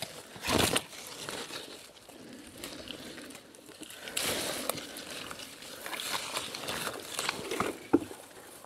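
Aronia bush foliage and twigs rustling and crackling in uneven bursts as berries are picked by hand, with a few short sharp snaps.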